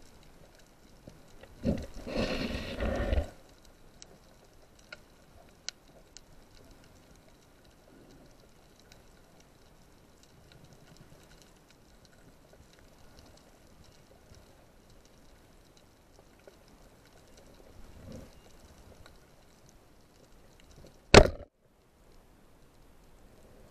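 Underwater sound through a camera's waterproof housing: a faint hiss with scattered clicks, a loud rushing noise for about a second and a half about two seconds in, and one sharp knock near the end.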